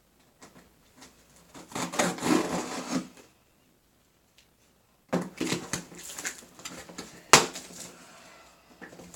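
Handling noise from a box and its packaging: two stretches of rustling and scraping, with one sharp knock about seven seconds in.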